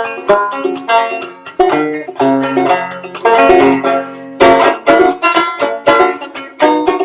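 A tune played solo on a banjo: quick plucked notes ring out one after another in a steady rhythm.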